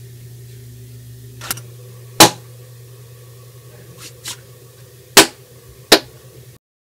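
Gunshot bangs, sharp and short: three loud ones about two seconds in, five seconds in and six seconds in, and a few fainter pops between them. A steady low hum runs underneath, and the sound cuts off near the end.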